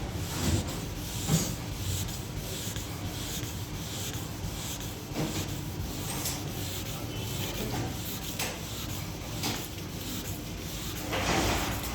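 Sandpaper rubbing on a car's painted bodywork in short, irregular strokes to sand out scratches, louder near the end.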